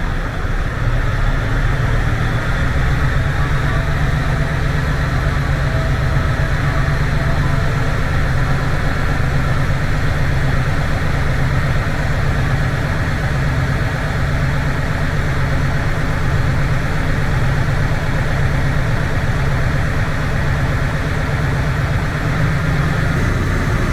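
Mercedes-Benz Actros truck's diesel engine running steadily at idle.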